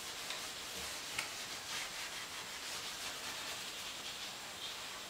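Super-fine steel wool rubbing in short strokes over a chalk-painted wooden cabinet front, wiping off dark wax.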